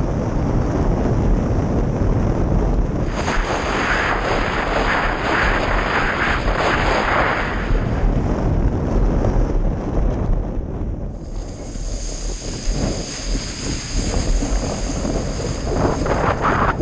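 Wind buffeting the microphone of a mast-mounted camera on a windsurfer under sail, with water rushing and spraying past the board. The rushing swells for a few seconds, eases off about ten seconds in, then picks up again near the end as the board turns through spray.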